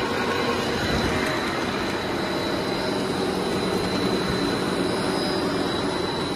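Steady mechanical noise of a pet chew extrusion line running: extruder and mesh conveyor working, with a thin, steady high-pitched whine.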